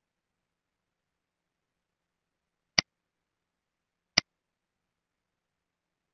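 Two single computer mouse clicks, about a second and a half apart, with dead silence between them.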